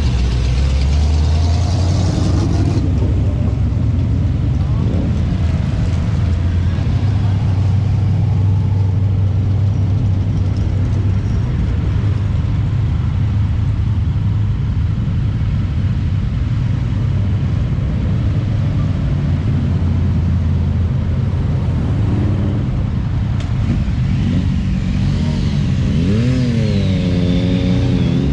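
Car engines rumbling steadily as cars drive past in slow traffic, with one engine revving up and down several times near the end.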